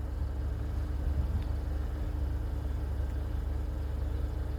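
A vehicle engine idling: a steady low rumble with a faint, even hum above it.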